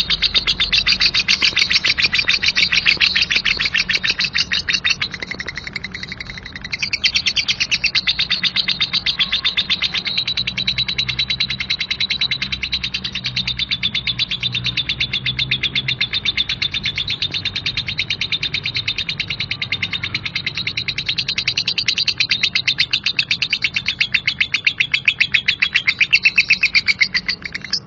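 Lovebird singing ngekek: one long, unbroken run of rapid, coarse chattering chirps. It weakens for a moment about five seconds in, picks up again about seven seconds in, and cuts off near the end.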